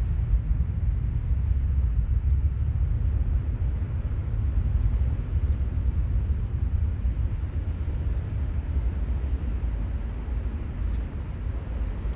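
Outdoor seaside ambience: a steady, deep rumble with no clear pitch, fairly loud.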